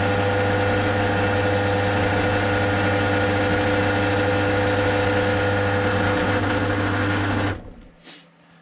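Pillar drill's electric motor running at a steady speed, set at about 790 rpm with a 1.5 mm bit for drilling small holes in thin metal, with a constant hum. It is switched off about seven and a half seconds in.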